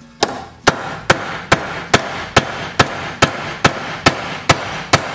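Ball-peen hammer striking a steel pin punch set on the hub of a Wheel Horse RJ58 tractor's steering wheel, a steady run of twelve metallic blows about two a second, each ringing on until the next. The hammering is meant to drive out the pin that holds the wheel on its shaft.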